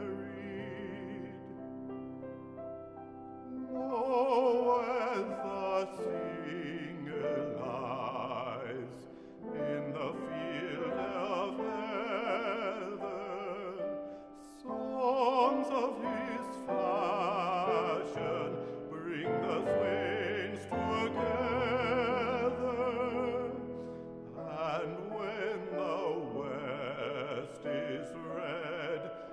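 Classical art song: a bass-baritone singing with wide vibrato over a Bösendorfer grand piano accompaniment, with the piano alone for the first few seconds before the voice comes in.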